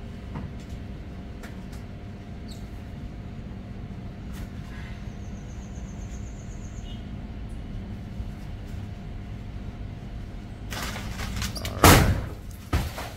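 Breadfruit tree being worked with a long picking pole: leaves and branches rustle loudly near the end, then a heavy thud, and a smaller knock about a second later, as the knocked-down breadfruit lands. A steady low hum runs underneath.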